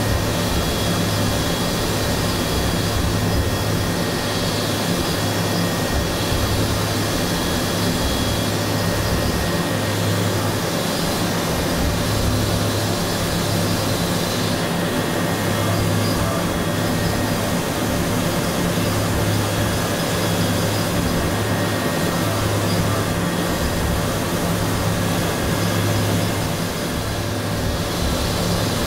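CNC machining center milling hardened SKD61 die steel (43 HRC) with a small end mill at 8,000 rpm: a steady mechanical whine of several held tones over an even hiss, the low hum rising and falling in level every few seconds.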